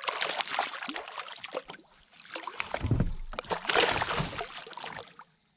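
Water splashing and sloshing beside a kayak, in two spells with a short lull about two seconds in.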